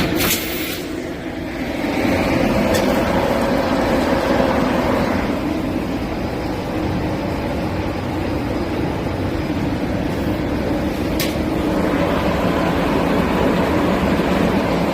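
Shrink-wrap packaging machine running, with a steady mechanical hum and a few sharp clicks, among them one about three seconds in and one about eleven seconds in.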